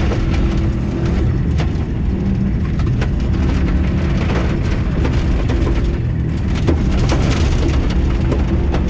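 A rally car's engine running hard on a loose gravel stage, heard from inside the cabin, with frequent sharp knocks and rattles of gravel thrown against the car's underbody.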